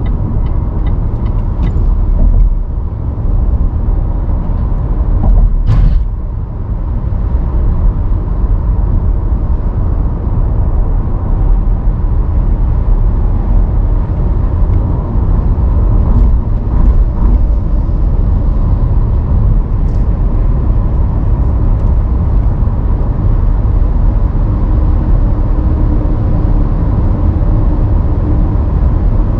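Steady low rumble of a car driving on city roads, with light regular ticking, about two a second, in the first couple of seconds and a single sharp click about six seconds in.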